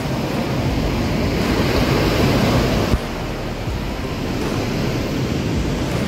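Surf washing onto a beach, with wind on the microphone; the sound changes abruptly about three seconds in.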